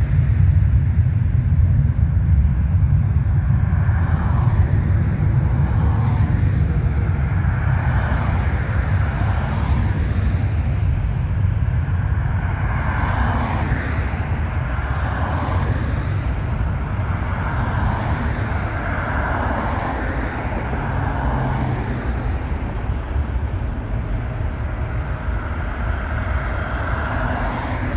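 Jet airliner engines running, heard from a distance as a steady low rumble with a rushing noise that swells and wanes, fading slowly over the whole stretch.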